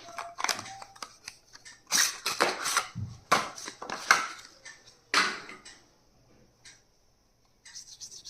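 Stationery items and their packaging being handled and unwrapped: crinkling and rustling with quick clicks and taps. The sounds stop about six seconds in, and a few light clicks return near the end.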